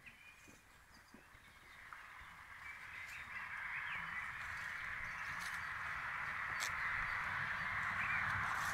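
A dense chorus of many birds calling, building up over a few seconds and staying loud, with a few light clicks over it.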